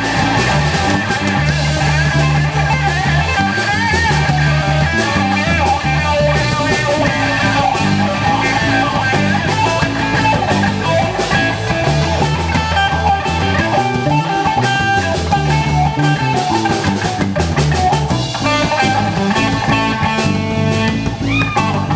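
Live blues-rock band: a lead guitar improvising a solo, with bends, over a twelve-bar blues played by bass and drums.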